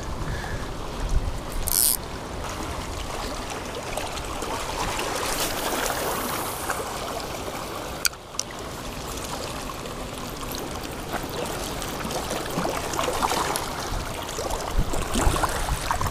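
Shallow water lapping and trickling over lava rocks at the shoreline, a steady wash of water noise with a low rumble underneath. A single sharp click about eight seconds in.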